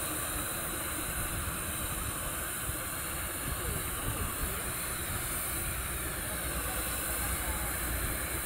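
Thermite (aluminothermic) rail-welding set on a rail joint, giving a steady hiss as flame and glowing metal burst out at the mould.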